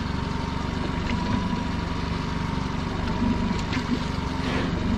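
Pot-hauling winch running steadily as it hauls a lobster pot up from the seabed: an even motor hum with a constant thin whine.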